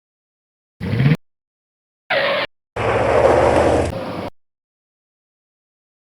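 Vehicle brake sound effects played as three separate short clips with silence between. A brief one comes about a second in and another just after two seconds. The third, about a second and a half long, has a low steady drone under a noisy hiss.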